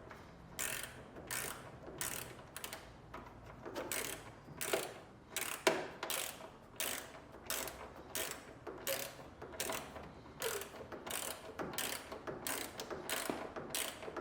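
A 7 mm socket on a ratchet driver tightening the screw of a washing machine's drum-to-sump hose clamp, the ratchet clicking in regular strokes about every two thirds of a second.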